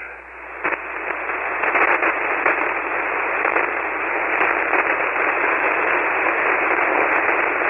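Steady hiss of band noise from a 40-metre SSB ham radio receiver, confined to the receiver's narrow voice band. It fades in over the first second or two, then holds steady, with no readable reply from the called station.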